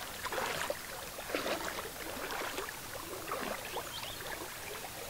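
Water of a small stream running, an uneven, fairly faint trickling and lapping.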